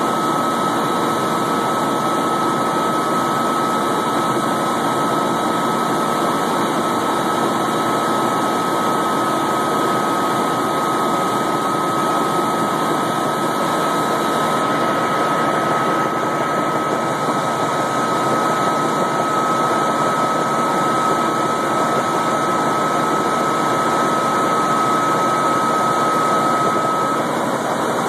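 Helicopter in flight heard from inside the cabin: a steady engine and rotor din. A thin, steady high tone runs over it and cuts off shortly before the end.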